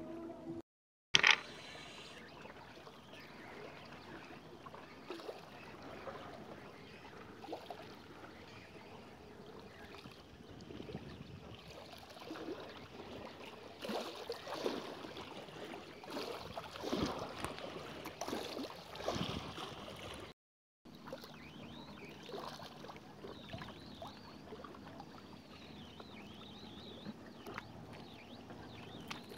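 Lake water lapping and sloshing against shoreline rocks, with irregular rustles and knocks of handling. A sharp knock about a second in is the loudest sound.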